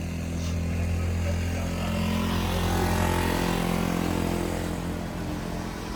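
A motor vehicle's engine humming steadily, growing louder toward the middle and easing off near the end, as if passing by.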